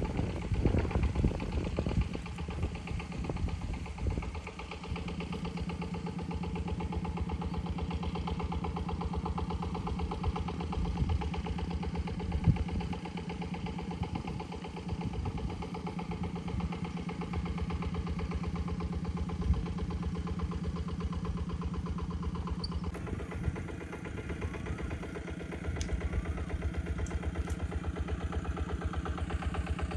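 A small engine running steadily at an idle-like pace with an even firing rhythm, a few knocks in the first couple of seconds, and a slight change in its sound about three-quarters of the way through.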